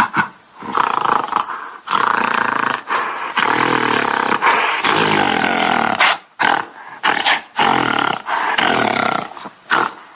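Gorilla vocalising: a few quick grunts, then long, rough calls held for several seconds, broken by a run of short grunts about six seconds in, then more long calls. The calls stop about a second before the end.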